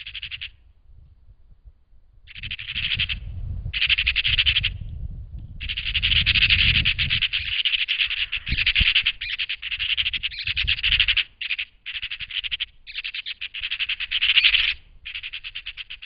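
Eurasian magpies chattering in repeated fast rattling bursts, almost unbroken through the middle, the harsh alarm chatter they use to mob a buzzard feeding on a dead magpie.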